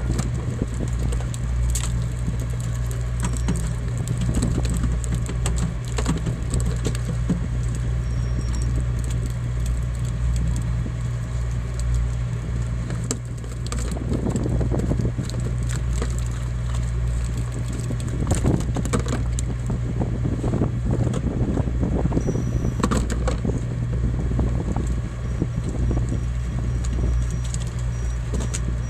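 A fishing boat's engine runs with a steady low drone, under frequent metallic clinking and rattling of gear on deck.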